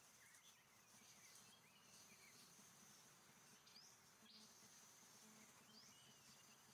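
Near-silent forest ambience: a faint, steady high-pitched insect drone, with a few faint short chirps.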